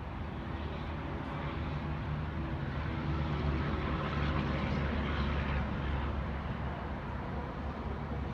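A motor vehicle's engine running with a low hum, growing louder towards the middle and then easing off, as of a vehicle moving slowly past.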